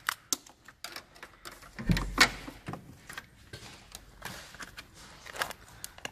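Small box of a replacement H7 headlight bulb being opened by hand: scattered crackles and clicks of the packaging, with one louder knock about two seconds in.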